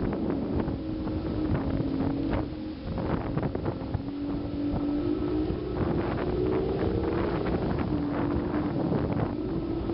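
Motorboat engines running at speed, with a drone that rises and falls in pitch. Wind buffets the microphone, and the hull knocks repeatedly against the chop.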